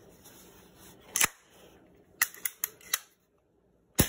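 Sharp metallic clicks from working the action of a Western Auto Revelation pump-up air rifle: one click about a second in, four quick clicks between two and three seconds, then a loud snap near the end.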